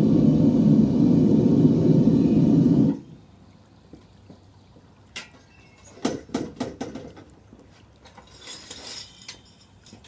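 Gas burner of a home-made foundry furnace running loud and steady, then cut off abruptly about three seconds in. A few seconds later come sharp metal clanks as the steel furnace lid is lifted off, and a brief scrape near the end as it is set down.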